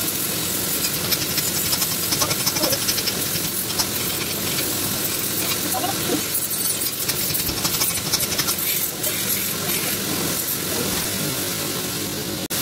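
Blacksmith's forge hissing steadily with a fine crackle.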